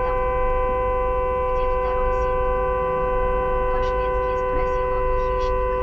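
A car horn held down in one long unbroken blast, two notes sounding together at a steady pitch.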